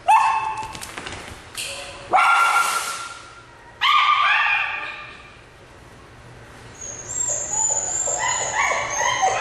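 A dog crying and yelping: three long high-pitched cries in the first four seconds, then a run of shorter, quicker yips from about seven seconds in.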